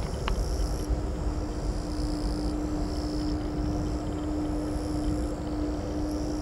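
Distant Airbus A330-300 jet airliner on final approach, heard as a low steady rumble with one steady humming tone running through it.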